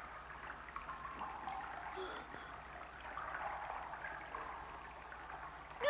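Quiet churning, running water: a cartoon sound effect of a large creature swimming through a water channel.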